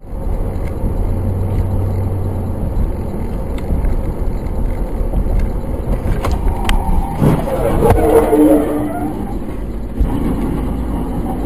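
Car engine and tyre noise from inside a moving car's cabin, picked up by a dashcam. About seven seconds in there are a couple of sharp knocks, then a brief louder passage with a pitched sound.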